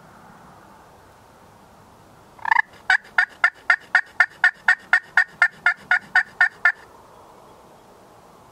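Wild turkey calling: a long run of about seventeen sharp, evenly spaced two-tone yelps, about four a second, starting about two and a half seconds in and stopping after about four seconds.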